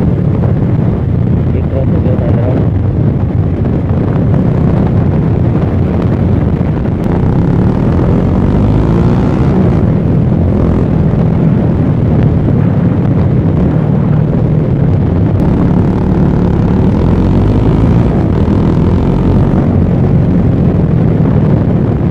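Motorcycle cruising at highway speed: a steady engine hum mixed with heavy wind noise on the microphone.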